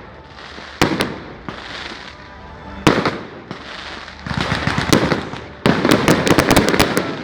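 Firecrackers going off: sharp single bangs about one and three seconds in, then a rapid string of crackling pops from about four seconds to near the end.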